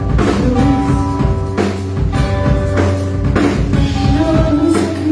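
Live band playing an instrumental passage: a drum kit keeping a steady beat under held chords.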